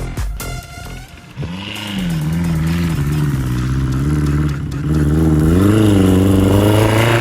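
Sand buggy engine revving, its pitch rising and falling as the throttle is worked. It drops away briefly about a second in, then climbs again and runs loudest over the last couple of seconds.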